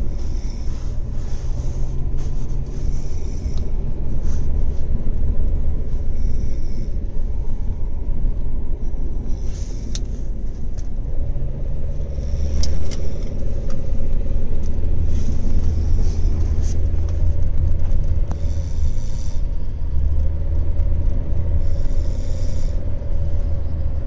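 A person snoring inside a car, a noisy breath every two to three seconds over the car's steady low rumble.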